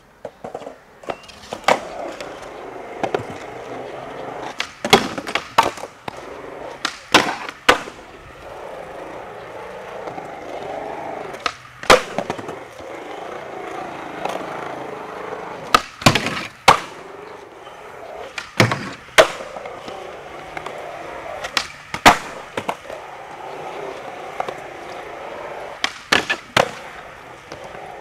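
Skateboard wheels rolling on smooth concrete, broken by a dozen or so sharp clacks of the board hitting the floor, several in quick pairs, as tricks are popped and landed.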